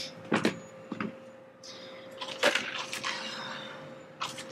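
A few knocks as a plastic nursery pot of soil is handled and set down in a plastic bin, then a stretch of rustling as a cardboard package of elephant-ear bulbs is picked up and opened.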